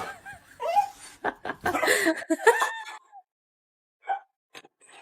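A person laughing and giggling for about three seconds, then a pause and a few short faint sounds.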